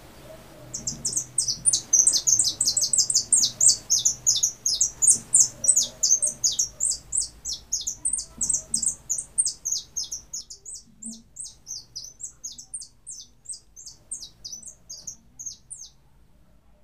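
Caged jilguero (finch) singing: a long, fast run of high, sharp chirping notes that begins about a second in, loud for the first ten seconds or so, then fainter until it stops near the end.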